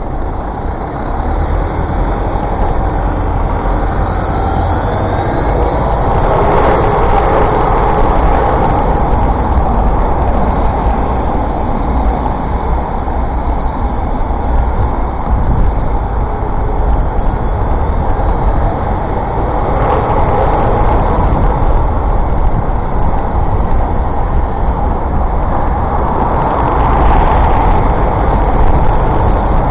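City road traffic heard from a bicycle riding among it: a steady rumble of buses, lorries and cars, swelling louder now and then as vehicles pass.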